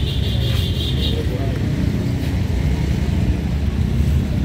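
A steady low background rumble, with a brief high, shrill tone in about the first second.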